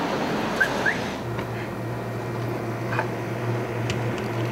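Road traffic noise from passing cars for about a second, with two short rising chirps. It then gives way abruptly to a steady low hum.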